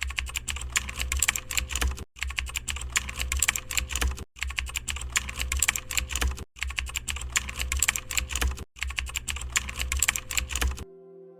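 Rapid typing on a computer keyboard, dense keystroke clicks in blocks of about two seconds, broken four times by brief silent gaps as if one clip is repeated. The typing stops shortly before the end, giving way to a faint sustained chord.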